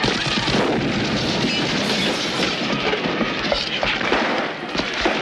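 Heavy gunfire: dense, rapid shots with booms mixed in, never letting up.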